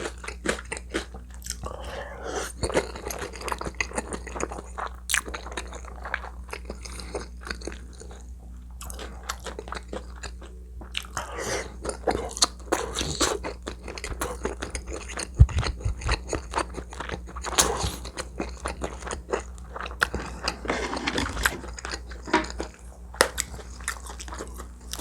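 A person chewing and biting food close to the microphone, with wet mouth sounds and many sharp clicks throughout, over a faint steady low hum.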